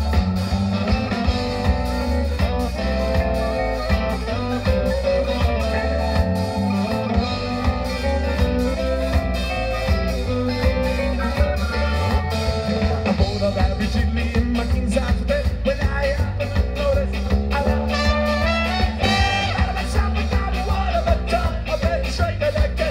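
A live ska band plays with a steady beat: horn section of saxophones, trombone and trumpet over electric guitars, bass guitar and drums.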